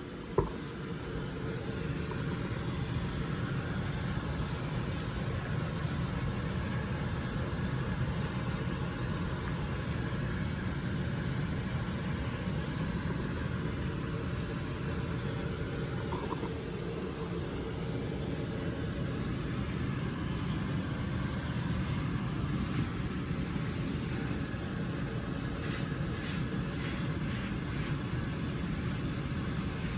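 A steady low rumbling noise throughout, with one sharp click right at the start.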